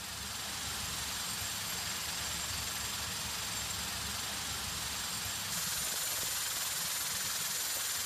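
Vibratory finishing machine running, churning carabiner bodies in polishing media: a steady rushing hiss over a low rumble, stepping a little louder about five and a half seconds in.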